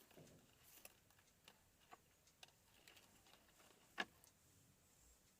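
Near silence with faint, scattered small clicks and one sharper click about four seconds in: hands handling and stripping the thin inner wires of a printer cable.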